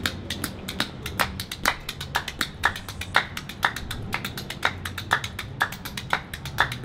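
A fast run of sharp percussive taps, several a second in a steady rhythm with uneven accents, over a faint low steady hum.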